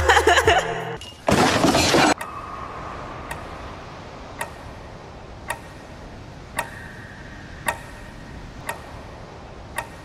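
Small clock ticking about once a second as it is tested running with its hands fitted. A loud burst of noise, lasting under a second, comes about a second in, before the ticking begins.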